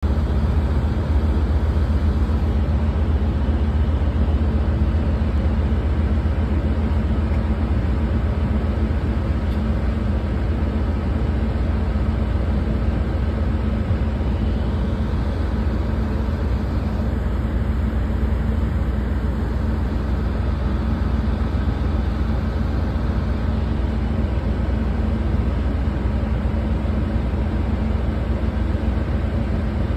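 Ship's engine and machinery running with a steady low drone, a hum held at a few fixed pitches, unchanging throughout.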